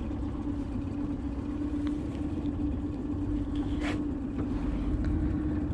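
Boat motor running steadily, a constant hum over a low rumble, with one short click about four seconds in.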